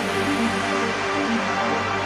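Electronic trance music: a sustained bass tone under a quick repeating pattern of short synth notes.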